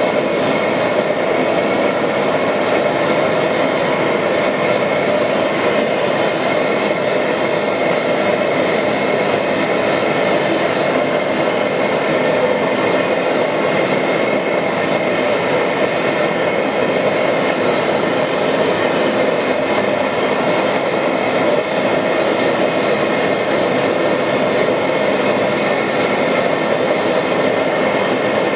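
Steady workshop machine noise, a constant rushing hum with several fixed tones, unchanging throughout and with no hammer blows.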